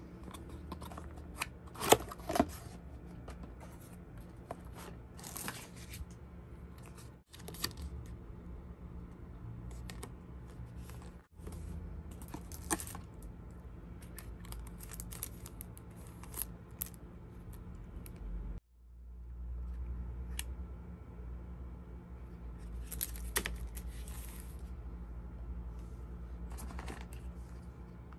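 Cardboard box and packaging being handled and opened by hand: scattered rustles, crinkles and light taps over a steady low hum, which breaks off abruptly a few times.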